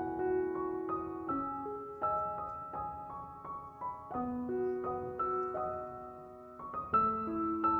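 Background piano music: a slow melody of single notes over sustained chords.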